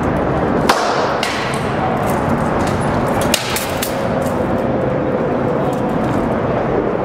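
A few sharp cracks of rattan sword blows landing on shield and armour in armoured sparring, the sharpest about a second in and a pair about three and a half seconds in, over a constant loud background noise.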